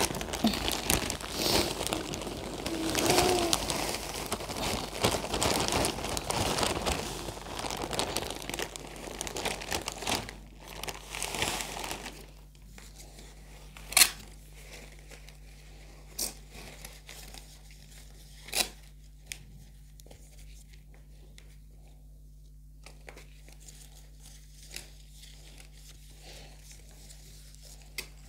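Plastic bag of potting soil crinkling and rustling as soil is scooped out of it by hand, for about the first twelve seconds. Then quieter, with a few sharp knocks while the soil is pressed in around the plant in its pot.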